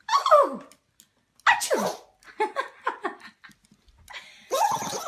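A dog sneezing several times in short separate bursts, some with a falling, whine-like pitch.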